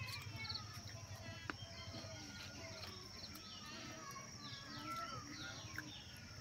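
Birds chirping and calling in many short, quick, overlapping calls, some falling in pitch, over a faint steady high hum.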